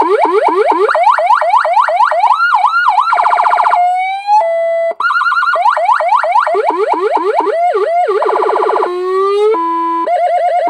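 AS920 electronic siren driving a 200-watt slim horn speaker, cycling through its tones: fast rising yelp sweeps about three to four a second, a short warble, a harsh buzzing horn tone, a rising glide and steady high-low beeps. The sequence repeats about every five seconds.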